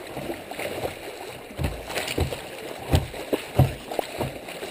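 Kayak moving through choppy creek current: rushing water against the hull, with irregular slaps and splashes, the loudest about three seconds in.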